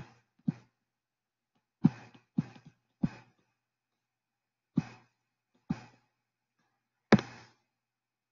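About seven brief, scattered taps and thumps of a stylus on a tablet screen during handwriting, with silence in between.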